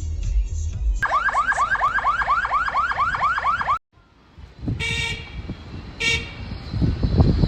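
Car alarm siren sounding in fast repeating rising sweeps, about five a second. After a sudden cut, low wind noise on the microphone follows, with two short horn blasts about a second apart.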